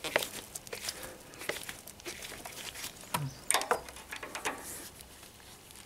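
Irregular clicks, taps and light knocks, with some rustling, from engine parts being handled and refitted by gloved hands.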